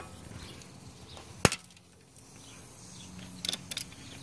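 A ratchet on an extension breaking a seized coolant temperature sensor loose from the engine: one sharp crack about a second and a half in, then a few light clicks near the end.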